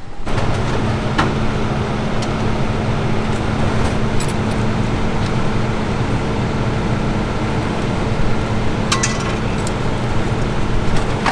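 Fire engine idling with a steady low drone. A few light metallic clicks and clinks come through it, from firefighters' gear being handled at the truck.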